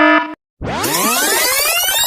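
The last pulse of an electronic alarm beep cuts off. After a brief gap, a synthesized sound effect starts: many layered tones gliding upward in pitch together.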